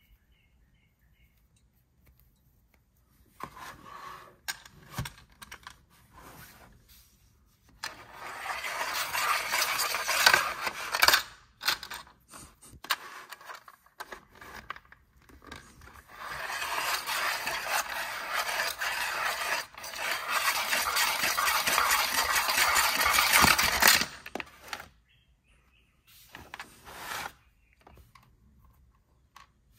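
A hard plastic toy figure scraping and rattling as it is run round a plastic loop playset by hand. The scraping comes in two long stretches of several seconds each, with scattered clicks and taps before, between and after.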